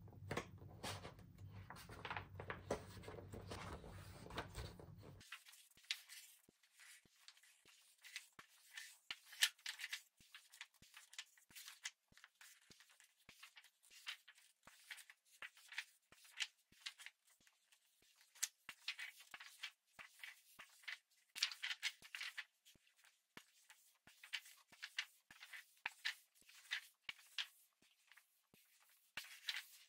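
Pages of a glossy paper sticker book being turned and handled: quiet, irregular paper rustles, crinkles and small clicks. A low background hum cuts off about five seconds in.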